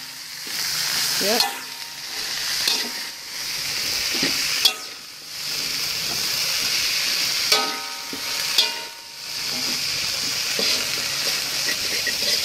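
French beans and carrots sizzling in a hot pan while being stirred and tossed, with a steady hiss and a few sharp knocks of the utensil against the pan.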